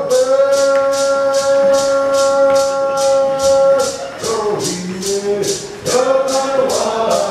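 Cherokee social-dance song: one voice holds a long note for about four seconds, then the melody moves on. Under it a rattle is shaken in a steady beat of about three strokes a second.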